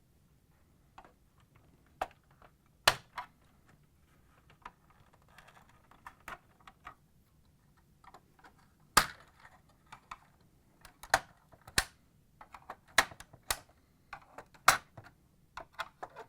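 Plastic locking tabs on a Whirlpool front-load washer's control panel being pushed and released with a flat blade screwdriver: a series of sharp, irregularly spaced clicks and snaps with light scraping between them.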